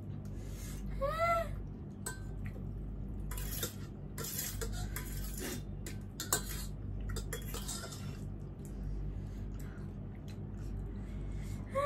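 Cutlery clinking and scraping against bowls as noodles are eaten, in scattered short clicks. One short call that rises and falls in pitch is heard about a second in.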